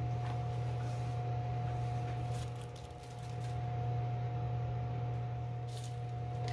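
A steady low motor hum with a fainter steady whine above it, and a few light clicks.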